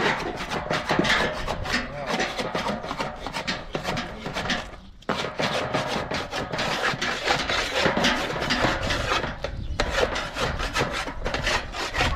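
A metal spatula and a cloth scraping and rubbing flatbreads against a large metal griddle tray over a fire, in quick repeated strokes that break off briefly about five seconds in and again near ten seconds.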